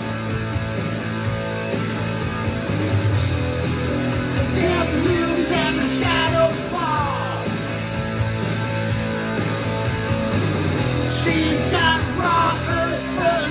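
Rock song with guitar and singing playing from a vinyl record on a turntable in the room.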